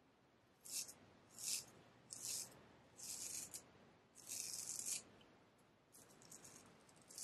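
Straight razor scraping through lathered stubble on the neck: a series of short rasping strokes, each under a second long, followed by a patter of lighter, crackling strokes near the end.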